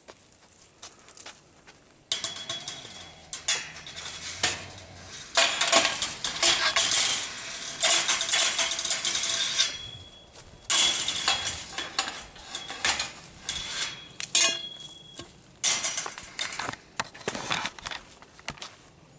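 Irregular metallic clattering and scraping, in repeated loud bursts with a faint metallic ring: a metal feeding bowl and a long feeding pole knocking and scraping against chain-link cage fencing.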